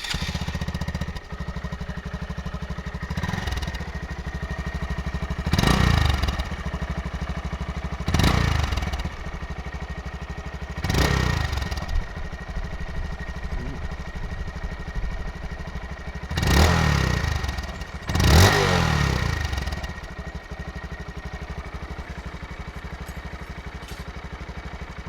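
Honda Monkey 125's air-cooled single-cylinder four-stroke engine idling through its exhaust, revved in short blips about six times, each climbing and falling back, then settling to a steady idle for the last few seconds.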